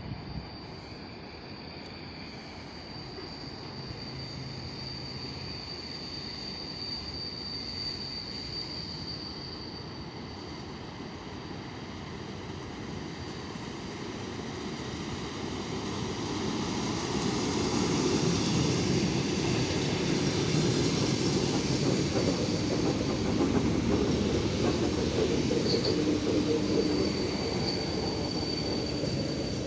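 Six-car ER9M electric multiple unit drawing into the platform: its rumble grows louder about halfway through and stays loud as the cars pass close, with a high, steady squeal at first and again near the end.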